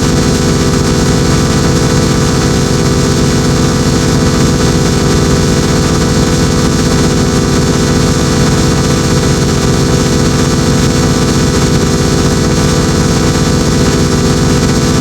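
A loud, dense wall of many overlapping steady tones and noise, with a fast flutter in the low end and no change in level. It is a digitally layered combination of sound-effect clips.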